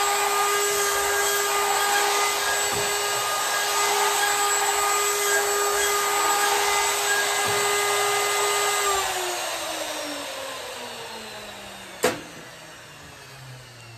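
DeWalt 2¼ hp router with a 2-inch slab-flattening bit running at speed on a linear-rail router sled, making a shallow surfacing pass over an epoxy and wood slab. About nine seconds in it is switched off, and its whine falls steadily as the motor spins down. A single sharp click comes near the end.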